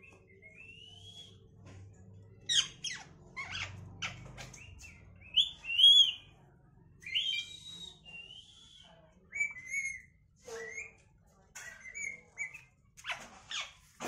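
Rose-ringed parakeet calling: a string of short squawks and chirps, many of them rising in pitch, loudest a few seconds in and around the middle.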